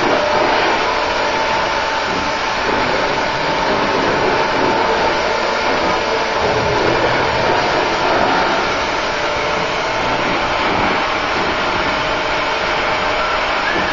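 Oxy-fuel cutting torches hissing steadily as they cut through the steel supports holding a ship's hull on the slipway, the stage that frees the hull for launching.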